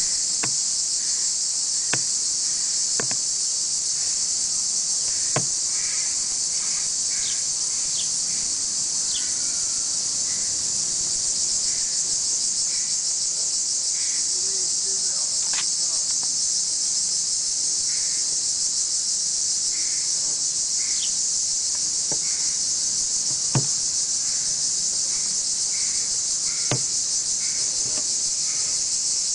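Steady, high-pitched insect chorus, with a few scattered sharp knocks and faint short chirps.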